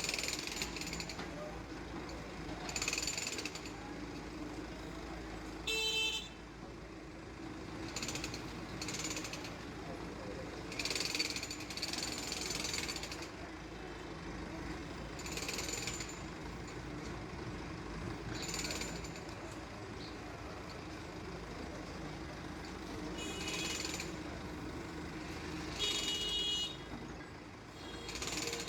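Case 770 EX backhoe loader's diesel engine running steadily, with short higher-pitched bursts every few seconds, a few of them carrying a shrill tone.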